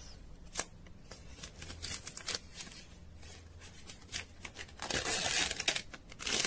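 Thin clear plastic protective film being peeled off a new smartphone and handled: scattered sharp crackles, with a longer spell of crinkling about five seconds in.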